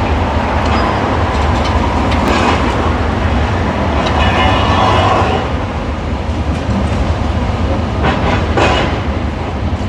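Heavy diesel demolition machinery running with a steady low rumble, broken by bursts of scraping and grinding about two seconds in, around four to five seconds, and again near the end.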